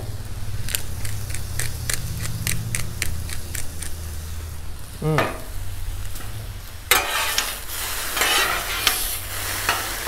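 Rice noodles sizzling on a hot steel griddle top. A run of sharp clicks from a pepper grinder comes over the first few seconds. From about seven seconds in, two metal spatulas scrape and toss the noodles across the griddle, louder than before.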